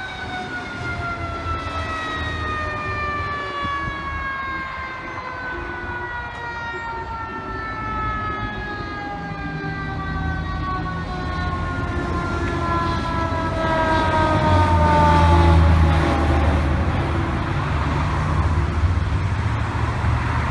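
Fire engine's siren winding down in one long, slowly falling wail that fades out after about 16 seconds. The truck's engine rumble rises as it drives past, loudest a little after the siren fades, with passing traffic.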